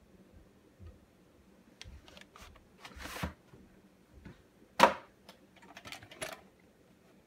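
Handling of a VHS tape and its sleeve: scattered plastic clicks and rustles, with one sharp click about five seconds in.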